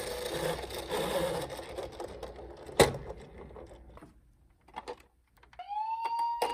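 Toy ambulance minicar giving a whirring mechanical rattle that fades out, then a sharp click about three seconds in and a few light clicks. Near the end an electronic toy siren starts, gliding up to a steady high tone.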